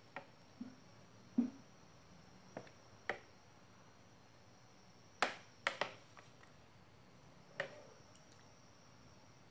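Metal spoon clinking and tapping against a bowl and a glass baking dish while syrup is poured over a cake: a scattering of light, sharp clinks, with a quick cluster of three about five to six seconds in.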